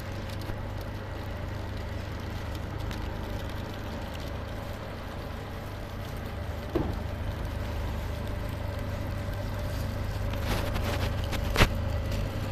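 Shrink-wrap packaging machine and its roller conveyor running with a steady low hum and a faint steady tone. A sharp knock comes about seven seconds in and a louder one near the end.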